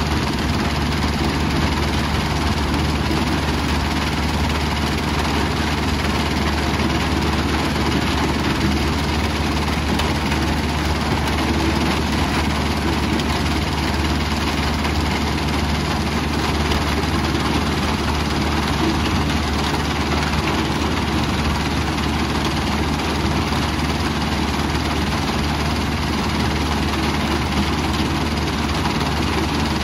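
A 2006 Powerscreen Chieftain 1400 mobile screening plant running steadily under load: its diesel engine and vibrating screen drone evenly beneath a constant rushing noise of sand and gravel passing over the deck and conveyor.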